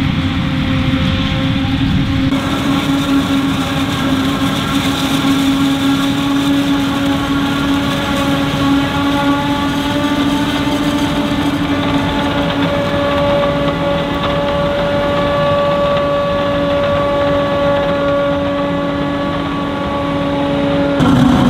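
Heavy farm machinery running steadily under load, a low engine drone with a steady whine above it. The sound changes abruptly about two seconds in and again near the end.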